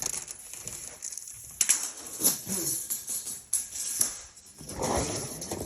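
Metallic jingling and clicking from handled gear, with a duller rustle or thump about five seconds in.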